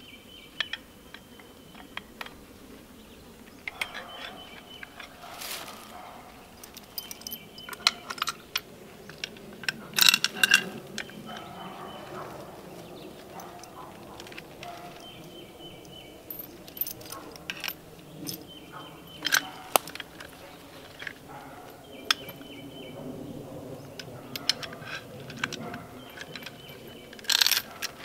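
Steel chain clinking and rattling as it is wrapped around a tree trunk and hooked to a pulley block and wire rope. The clinks come irregularly, loudest about ten seconds in and again near the end.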